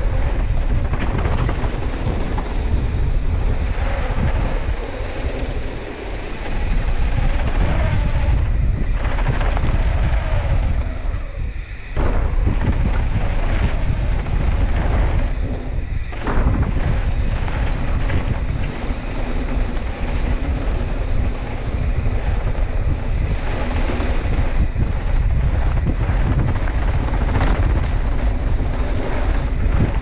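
Wind buffeting the microphone of a camera moving fast down a dirt mountain-bike trail, mixed with the low rumble of a mountain bike's tyres on packed dirt. The noise is loud and steady and drops out briefly a few times.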